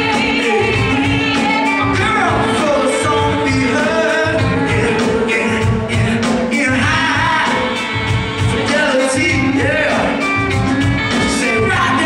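Live funk band with a horn section playing, with singing over a steady beat.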